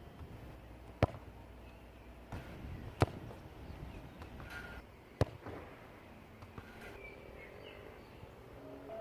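Three sharp thuds of a football being struck, about two seconds apart.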